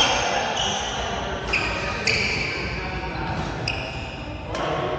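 Court shoes squeaking on an indoor court floor during badminton footwork: several short, high squeaks, with one sharp smack a little after four and a half seconds, over voices in the hall.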